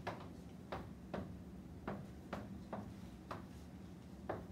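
Chalk tapping and scraping on a blackboard while words are written: a string of short, irregular clicks, about eight in all.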